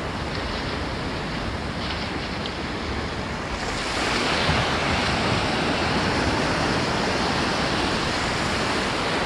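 Ocean surf breaking and washing through the shallows. It swells louder about three and a half seconds in as a wave breaks close by and its foam rushes in.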